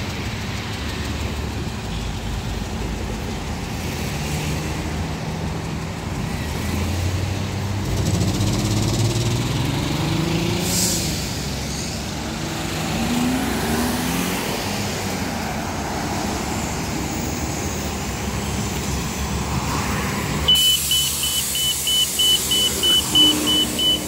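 Road traffic with cars and a low-floor transit bus approaching, their engines rising in pitch as they accelerate. About 20 seconds in, a steady high beeping of about three beeps a second starts at the bus's open front door.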